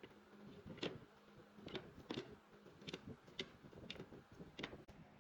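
A series of light, sharp taps or clicks at an uneven pace, roughly two a second, over a faint steady hum that fades out about halfway through.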